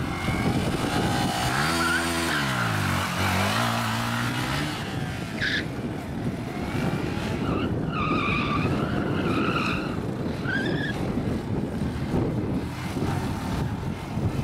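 Sport motorcycle engine revving, its pitch dipping and then climbing again a couple of seconds in, over a steady bed of engine and wind noise. Around the middle come several short, high tyre squeals as the bike is thrown through stunts.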